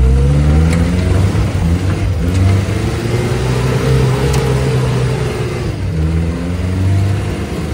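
UAZ-469B's four-cylinder petrol engine revving under way: its pitch climbs over the first few seconds, drops off, then climbs again near the end.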